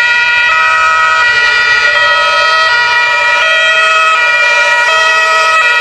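A loud siren-like sound: several tones held together, jumping to new pitches every half second or so.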